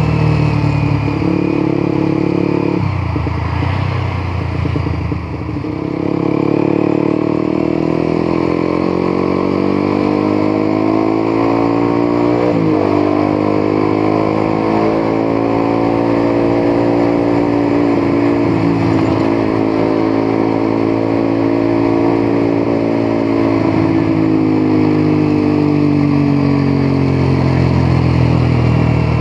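Motorcycle engine running under way, its pitch slowly rising and falling as the throttle opens and eases off, with a sudden shift in pitch about twelve seconds in.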